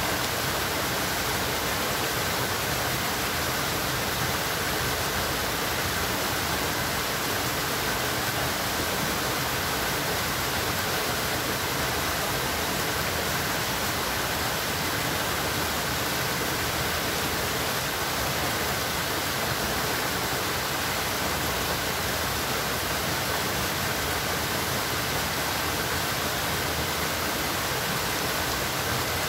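Steady rush of flowing water, an even unbroken noise with no distinct splashes or events.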